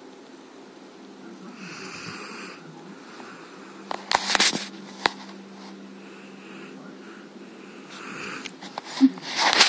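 Slow snoring: two long breath sounds, about two seconds in and again about eight seconds in, over a faint steady hum. Sharp clicks or knocks about four seconds in and a cluster of them near the end are louder than the snoring.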